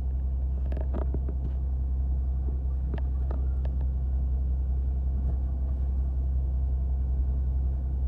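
Fishing boat's engine running with a steady low drone, with a few scattered knocks and clicks in the first half.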